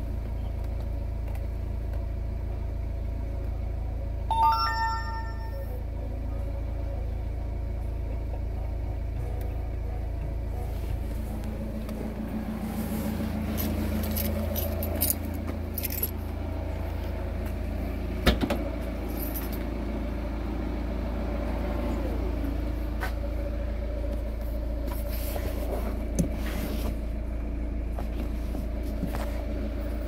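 Volvo XC90 running with a steady low hum, a short chime of several notes about four seconds in, and a few scattered clicks and knocks later on.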